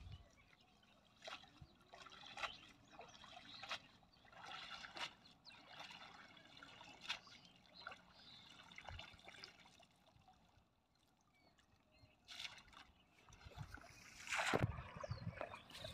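Faint water trickling and dripping off a wet cast net as it is hauled out of a pond, with small splashes in the water and a louder rush of water near the end.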